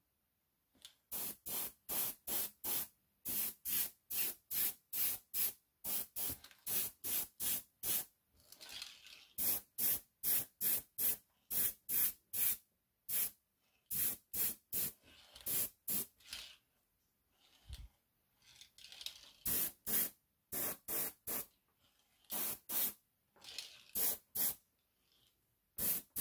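Airbrush spraying paint in short hissing bursts, about two a second, with a few brief pauses.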